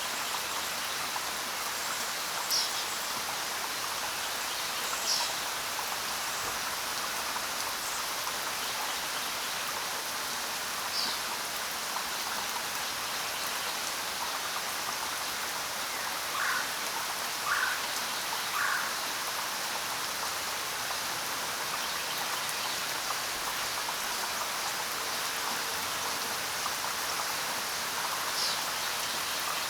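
Steady rain falling, with a few short bird chirps here and there and three lower bird calls in a row about halfway through.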